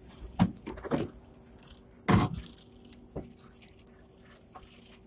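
A few knocks and thuds from passengers moving at a tram's exit door, the loudest about two seconds in, over the steady low hum of the stopped tram.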